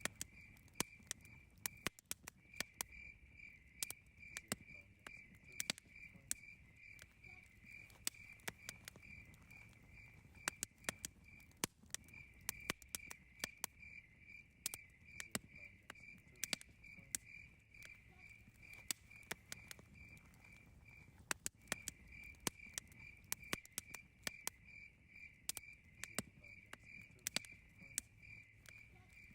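Wood fire crackling with sharp, irregular pops, over a cricket chirping in a continuous rapid high-pitched pulse that pauses briefly twice.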